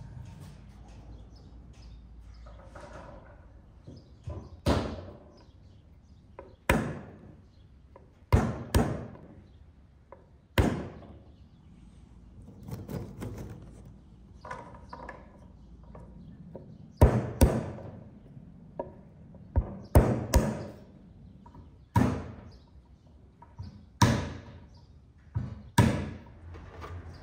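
Sharp knocks, about a dozen at uneven intervals, some in quick twos and threes, each ringing out briefly.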